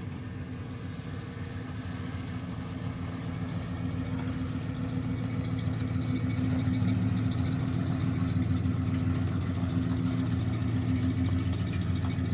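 Truck engine idling steadily, gradually growing louder.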